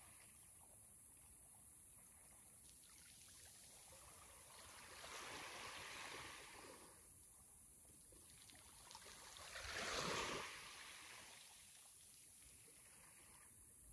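Sea waves washing in faintly: a soft wash about five seconds in and a louder one about ten seconds in.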